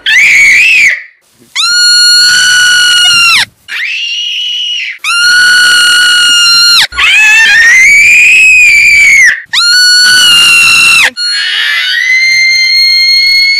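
About seven long, shrill screams in a row, each one to two and a half seconds. A marmot's piercing alarm scream alternates with a small girl imitating it. Some cries hold one pitch and cut off sharply; others rise and fall.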